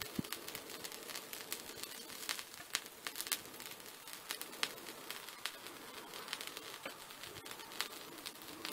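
A fuigo, a Japanese wooden box bellows, pumped slowly by hand, blowing a soft rush of air into a fire that crackles with many irregular sharp pops.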